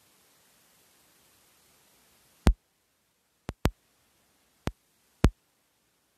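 Five sharp, very brief clicks or knocks at uneven intervals, starting about halfway through, with near silence between them; the first and last are the loudest.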